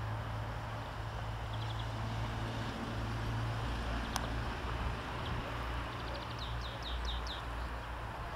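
Steady low engine hum, with small birds chirping and trilling over it, a quick run of falling chirps in the second half, and one sharp click about four seconds in.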